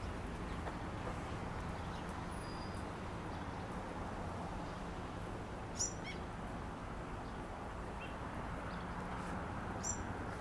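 Steady outdoor city-park ambience with a low traffic rumble underneath and a few short, high bird chirps, the clearest about six seconds in and again near the end.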